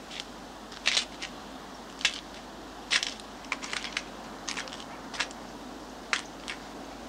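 Irregular dry crackling and crunching rustles, a sharp one every second or so with a quick cluster near the middle, over a faint steady hiss.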